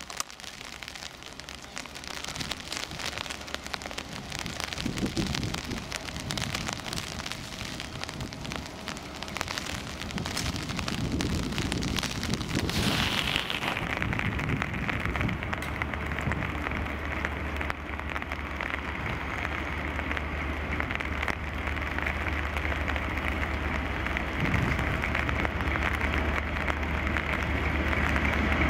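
Steady rain at first. From about halfway in, the Class 57 diesel locomotive's EMD two-stroke engine comes in as a steady low drone, growing louder as it approaches hauling its coaches.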